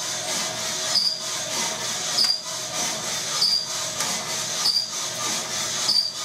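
Motor-driven drum coffee roaster turning, beans tumbling inside, with a short high squeak about every 1.2 seconds from part of the drive that needs oiling. The beans are in first crack, with scattered pops among the tumbling.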